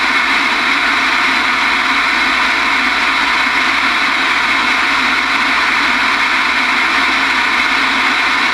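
Steady hiss of band static from a General Stonewall Jackson 10-meter base station's receiver, heard through its speaker between on-air transmissions with no station coming in.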